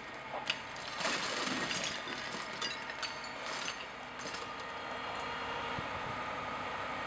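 A firefighter's pike pole knocking out a glass-block window: sharp cracks, glass breaking and shards clattering over the first four seconds or so. Then a fire truck's engine runs steadily.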